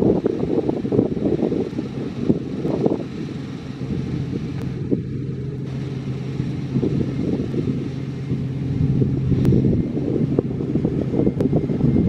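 Claas Lexion combine harvester running steadily while cutting wheat, a low hum over its engine and threshing noise, growing louder over the last few seconds as it comes closer. Wind buffets the microphone at times.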